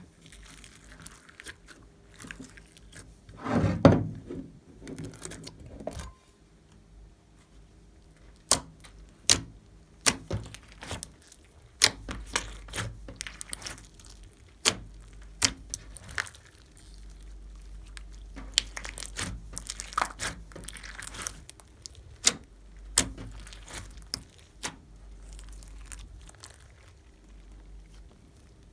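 Clear slime being kneaded and stretched by hand, giving irregular sharp clicks and pops with one louder, fuller squelch about four seconds in.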